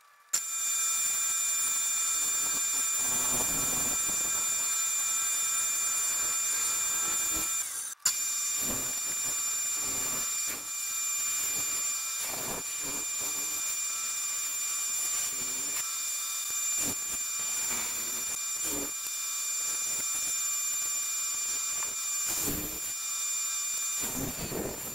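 Bandsaw running with a steady high whine while its blade cuts thick wood, the cutting noise rising and falling unevenly as the workpiece is fed and turned. The sound starts abruptly and drops out for a moment about eight seconds in.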